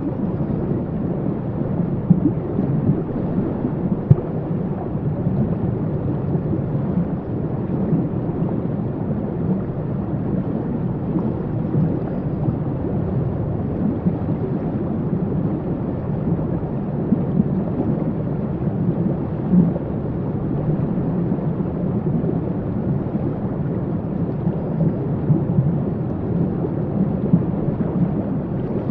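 Waterfall: a steady, dense rush of falling water, heaviest in the low range, with a few brief louder peaks.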